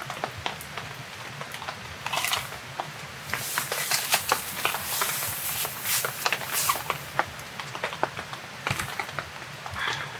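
Meat sizzling and crackling as it cooks, with many sharp pops. The hiss swells for a few seconds in the middle.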